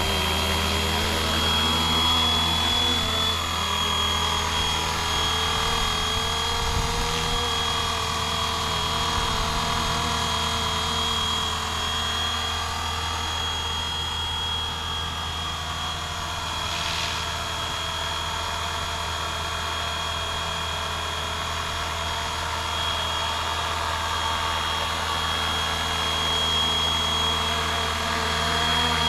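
Flywing Bell UH-1 Huey scale RC helicopter in flight. Its electric drive gives a steady high-pitched whine over the low rotor noise, with only small shifts in pitch.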